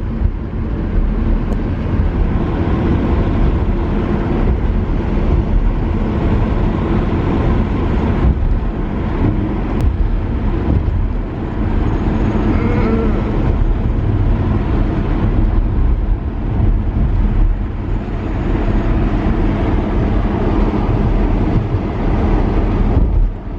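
Open-top two-seater car driving at speed: engine and road noise under a heavy, steady rumble of wind on the microphone.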